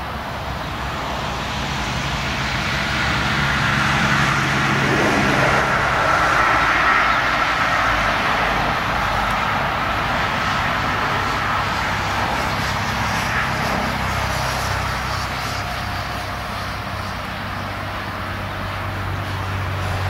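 Zillertal Railway diesel railcar running along the narrow-gauge line: a steady low engine hum under wheel-and-rail noise. The sound swells about six seconds in and eases off, and the low hum grows again near the end as the railcar comes closer.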